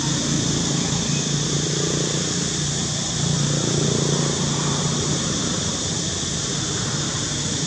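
A steady low motor drone that swells twice, over a constant high hiss.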